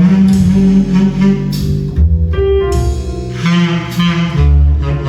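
Recorded music with strong, sustained bass notes playing loud through a custom loudspeaker system of horn speakers, two woofers and several tweeters, heard in the room.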